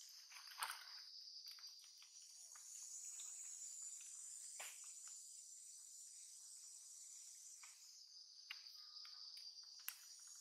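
Faint, steady high-pitched chorus of insects, with a few soft clicks and rustles scattered through it.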